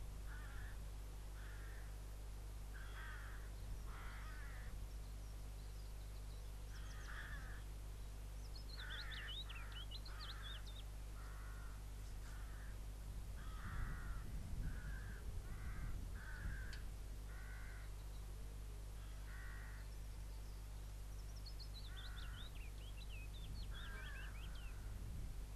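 Crows cawing over and over, with a small songbird twice giving a quick descending trill. A faint low steady hum lies underneath.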